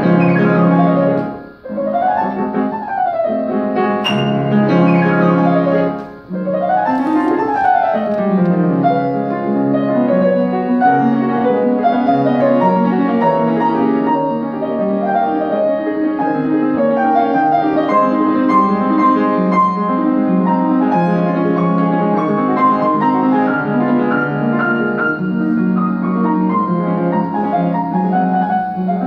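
Solo grand piano played in a classical style. Two brief breaks in the first six seconds are each followed by sweeping runs up and down the keyboard, then steady, dense playing.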